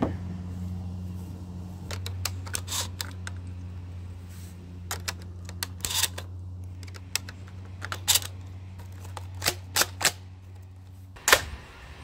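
Sharp metallic clicks and clacks of a pump-action shotgun being handled and loaded, shells pushed into its loading port, in irregular clusters of a few clicks each, the loudest near the end. A steady low hum runs underneath and stops about eleven seconds in.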